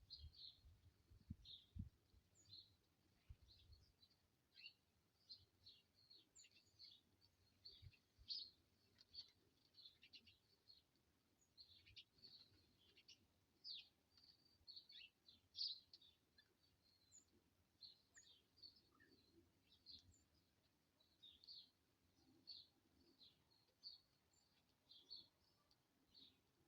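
Small birds at a winter feeder chirping, a steady scatter of short, high chirps and calls, faint. A few low thumps in the first seconds.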